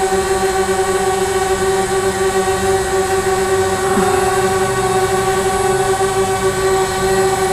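DJI Spark quadcopter hovering on its stock propellers: a steady, multi-pitched whine from its four motors and props.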